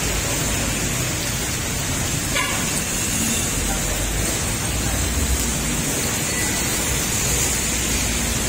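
Heavy rain falling steadily, with the tyres of passing motorcycles and cars hissing through water on the wet road.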